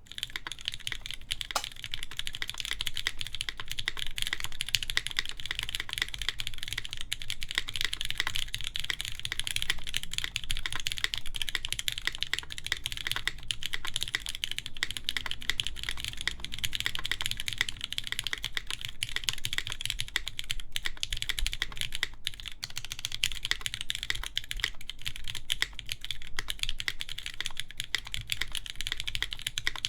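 Continuous fast typing on a Keycult No. 2 mechanical keyboard with lubed Cherry MX Black linear switches, 80 g springs, an aluminium plate and GMK keycaps: a dense run of deep, muted keystroke clacks.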